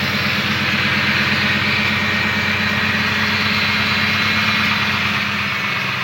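2006 Ford F-150's 5.4-litre Triton V8 idling steadily, now starting and running after a faulty transmission range sensor that had caused a no-start was replaced.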